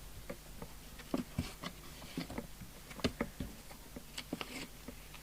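Unboxing handling noise: scattered light clicks, taps and short rustles of cardboard and paper as the radio's box is opened.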